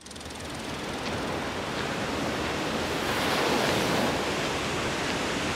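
Ocean surf washing onto a rocky shore, a steady rush of breaking waves that fades in over the first second and swells about three seconds in.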